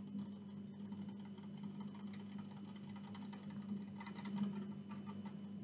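A steady low electrical hum. Over it, from about two seconds in, come faint crackles and light taps from an aluminium drink can being handled close to the microphone, a little louder about four seconds in.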